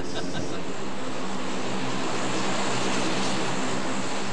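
Four Allison T56 turboprop engines of a C-130E Hercules running steadily: a loud, even rush with a steady drone of propeller tones underneath.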